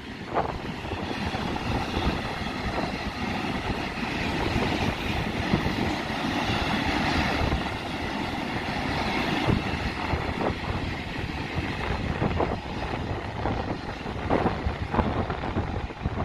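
Freight train of rail tank wagons rolling past at low speed, a steady rumble of wheels on rail with sharp clicks every so often, and wind buffeting the microphone.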